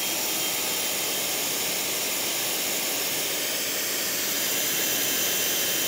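Pressure washer spraying steadily through a 40-degree fan nozzle: an even, loud hiss of the high-pressure water jet, with a thin high whine underneath.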